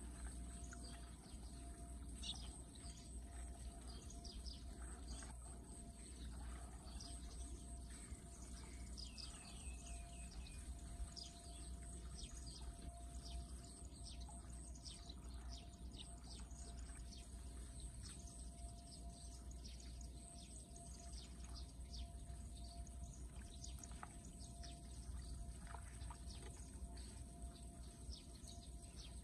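Light splashing and trickling of gloved hands working in shallow floodwater at a blocked roadside drain, over many short bird chirps and a steady low outdoor rumble.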